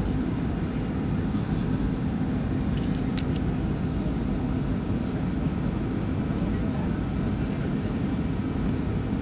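Cabin noise of a Boeing 737-400 on approach: the steady drone of its CFM56 turbofan engines and rushing air, with a steady low hum.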